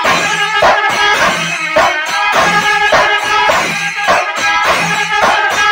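Kerala chenda melam ensemble playing loudly: a row of chenda drums beaten with sticks in a driving rhythm, kuzhal pipes sounding steady held notes, and ringing ilathalam cymbals.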